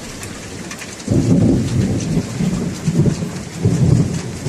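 Steady rain hissing, with a rumble of thunder that breaks in suddenly about a second in and rolls on in uneven swells.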